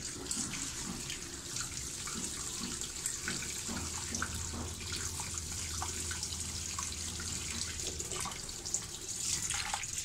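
Water from a hose running steadily into the wash tub of an LG semi-automatic washing machine. This is a test fill to show that the repaired drain rubber now keeps the water in the tub instead of letting it leak out.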